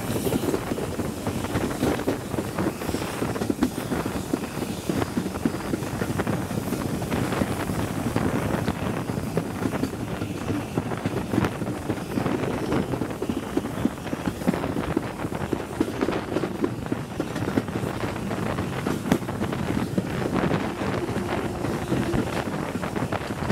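Wind rushing over the microphone held out of a moving train's carriage window, over the steady rumble and irregular clicking of the coaches running on the rails.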